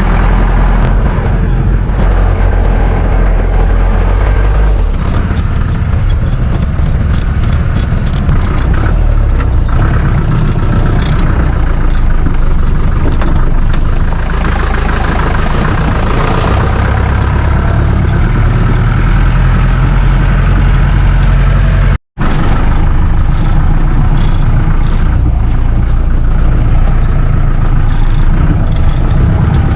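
Four-wheel-drive jeep running loud and steady as it climbs a rough off-road track, with occasional knocks from the bumpy ride. The sound cuts out for an instant about 22 seconds in.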